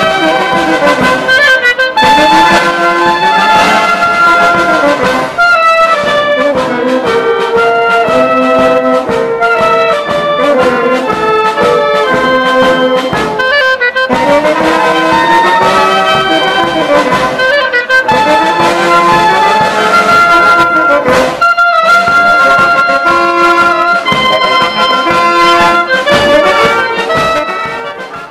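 A wind band playing, with clarinet, saxophones and trumpets carrying held melody notes over drums that keep a regular beat. The music fades near the end.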